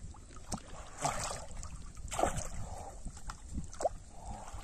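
Pond water sloshing and splashing around a person wading waist-deep, with a few louder splashes about one and two seconds in.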